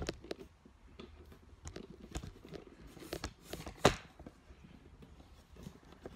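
Tool parts and paper packaging handled on a workbench: scattered light clicks and rustles, with one sharp knock a little before four seconds in.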